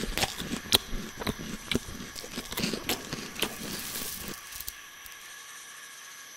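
Crunchy chewing sound effect: a run of irregular crisp crunches and clicks that stops a little over four seconds in, leaving a faint steady ambient hiss.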